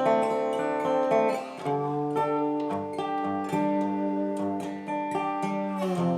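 Background music of acoustic guitar, with notes held and chords changing a few times.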